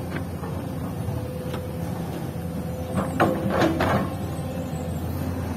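Hyundai excavator running steadily as its bucket dumps a load of soil into a steel dump truck bed. There are a few brief, louder sounds about three to four seconds in as the soil drops into the bed.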